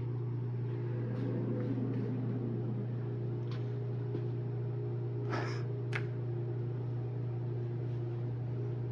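Steady low electrical hum from equipment running under heavy load, with a few faint clicks about three and a half, five and a half and six seconds in.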